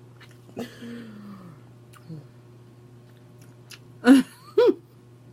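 A person's voice making short non-word sounds over a steady low hum. A soft, low sound falls in pitch about half a second in, and two short loud vocal sounds come about four seconds in.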